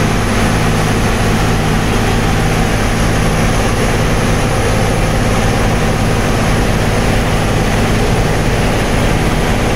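Plasser & Theurer FRM-85F track maintenance machine's diesel engine running steadily, a loud even drone with a low hum that does not change.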